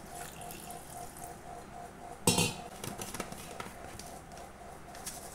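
Milk pouring from a steel bowl into a plastic blender jar. About two seconds in comes one loud clank with a short ring, then several light clicks as the plastic lid is fitted onto the jar.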